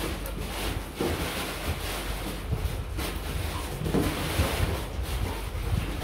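Rustling and low bumping from a cardboard box being rummaged through, in an irregular stream of noise with a few louder bursts.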